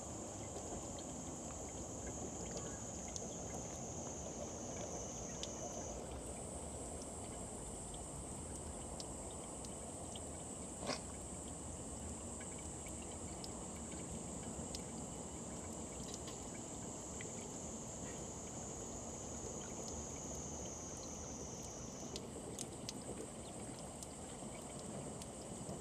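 A thin stream of tap water trickling into a stone basin while a cat licks and laps at the falling water, with small wet ticks and one sharper click about eleven seconds in. Behind it a high insect drone sinks slowly in pitch and jumps back up twice.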